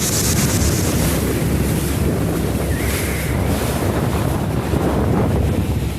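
Small motor launch under way after its gearbox repair, its six-cylinder Volvo four-stroke engine running steadily under heavy wind noise on the microphone and rushing water.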